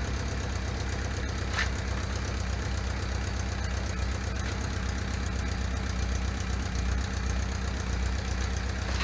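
Honda Nighthawk 750's air-cooled inline-four engine idling steadily.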